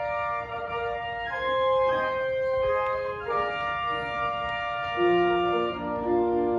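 Organ playing slow sustained chords, a prelude-style hymn passage; a lower bass line enters about five seconds in.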